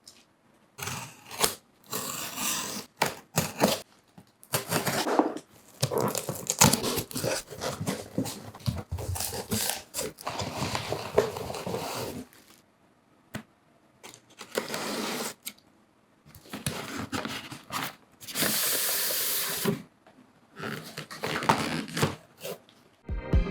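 Handling noises: irregular bursts of rustling, scraping and tearing separated by short pauses, with a longer steady hiss about three-quarters of the way through. Organ music comes in at the very end.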